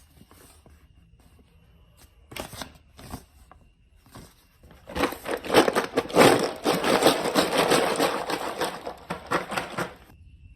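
Hard plastic marble-run building blocks clattering: a few separate clicks, then about five seconds of dense, rapid clattering that stops near the end.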